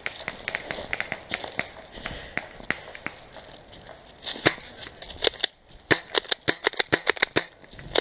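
Footsteps crunching through dry forest litter. About four seconds in comes a quick, irregular run of louder sharp cracks and snaps, lasting about three seconds.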